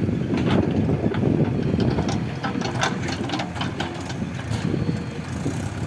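Heavy diesel engine of earth-moving machinery running steadily, with a scatter of short metallic clanks and clatter through the middle.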